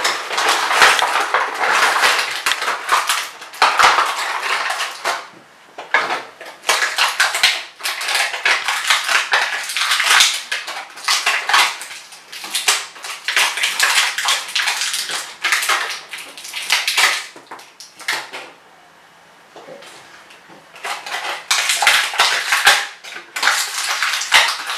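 Clear plastic toy packaging being torn open and crinkled by hand, in irregular bursts of rustling, with a lull of a few seconds about three-quarters of the way through.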